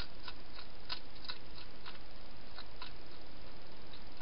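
A wild hedgehog chewing food: irregular sharp clicks, closer together at first and thinning out toward the end, over a steady hiss.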